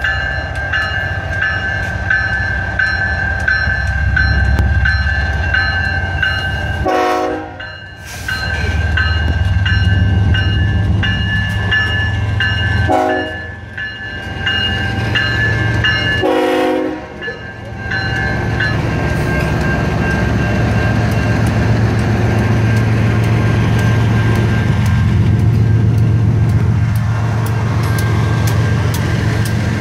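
Diesel freight locomotives passing close by with a heavy, steady engine rumble, while a level-crossing warning bell rings in a fast, even repeat. The sound drops out briefly three times, around a quarter, under half and just past halfway through.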